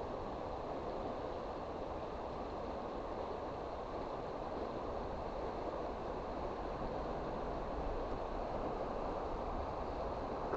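Steady rushing of river water, an even noise with no break or change.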